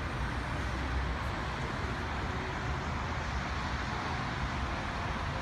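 Steady outdoor traffic noise: an even low rumble under a broad hiss, with no distinct events.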